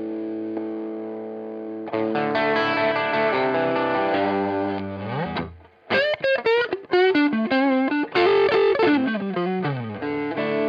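Strat-style electric guitar played through an MXR DD25 Dookie Drive overdrive pedal. A held chord rings, then strummed chords end in a slide down. After a short stop about halfway, a single-note lead lick with string bends slides down again into a ringing chord.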